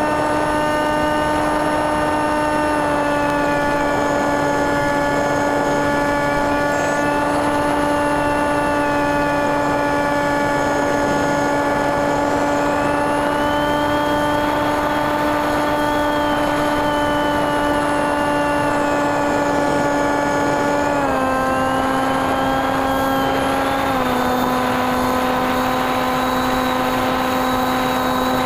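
Onboard recording of a TekSumo FPV plane's NTM 28-26 brushless motor spinning an 8x6 propeller in flight: a steady, loud motor-and-prop drone with a fainter high tone wavering up and down above it. The pitch drops in two steps near the end as the throttle is eased back.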